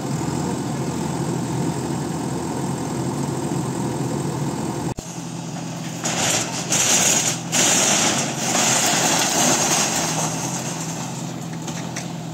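JCB backhoe loader's diesel engine running steadily. In the second half, loud bursts of rushing noise come and go over the engine.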